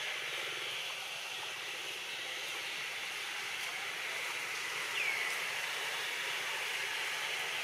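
Steady outdoor background hiss in a forest, with one short falling chirp about five seconds in.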